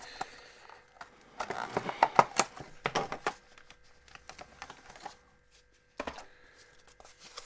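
A phone case being handled: a quick run of small plastic clicks and rustling in the first half, then a single click near the end.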